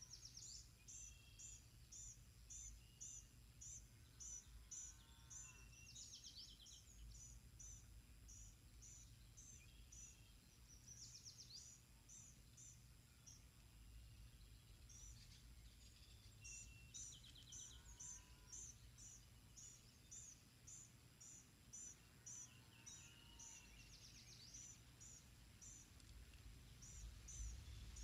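Faint outdoor birdsong: a long series of high, evenly spaced chips, about two or three a second, broken by a few short trills and lower curving notes, over a steady low rumble.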